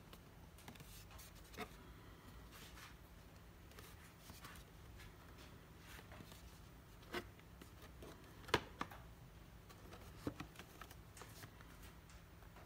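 Quiet handling of a vintage Rolex 50.00.09 paper-covered watch box: fingers shifting and rubbing on it, with a few light taps and clicks, the sharpest a little past the middle.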